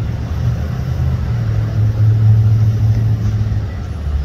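Steady low rumble of vehicle engines and road traffic close by.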